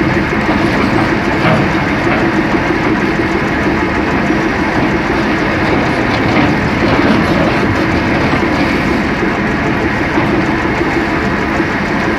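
Caterpillar 375 L hydraulic excavator working a rock face: its diesel engine runs steadily under load while the bucket rips and scrapes into the rock, with occasional knocks of rock cracking and breaking.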